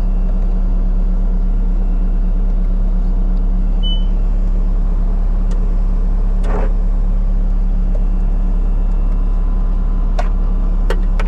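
Bobcat skid steer's diesel engine idling steadily. There is a sharp click about six and a half seconds in and a couple of short clicks near the end.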